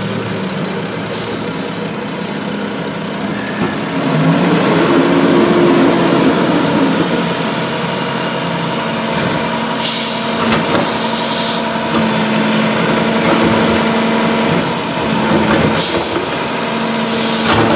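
Rear-loader garbage truck's diesel engine idling with a steady hum, rising and falling in pitch once a few seconds in. Two bursts of air hiss come about ten and sixteen seconds in, the second as the cart lifter tips a wheeled trash cart into the hopper.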